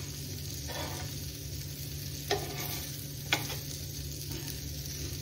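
Gram-flour-coated brinjal slices sizzling steadily as they shallow-fry in oil over a raised flame, with a metal turner clicking against the pan twice, about two and three seconds in.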